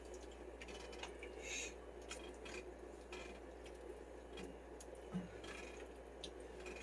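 Thick chicken stew heating in a pot on the stove, giving faint, irregular little pops and bubbles as it works up toward a simmer, over a low steady hum.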